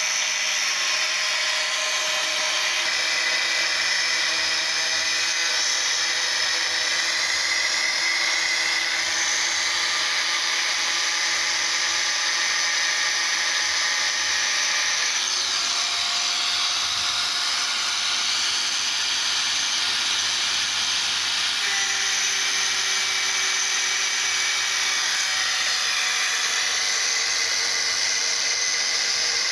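Handheld angle grinder with an abrasive cut-off disc cutting through rusty steel angle iron: a steady, high-pitched whine whose tones shift as the disc bites into the metal.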